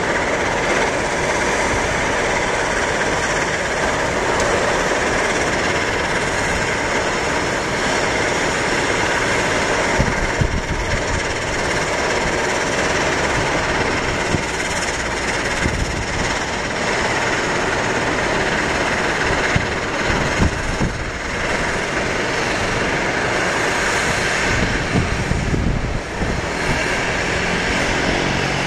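Steady hiss of a taxiing Airbus A320's CFM56 jet engines at idle thrust, heard from a distance, with gusts of wind buffeting the microphone every few seconds. Near the end a low, pitched engine drone comes in.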